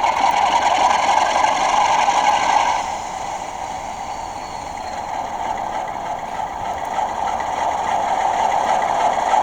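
Simulated diesel engine sound of an ND3-2 locomotive model's DCC sound decoder, played through the model's small speaker. It runs steadily, drops noticeably about three seconds in, then slowly builds back up.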